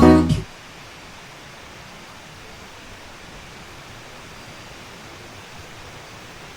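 Background music ends about half a second in, then a steady, even rushing hiss of flowing water.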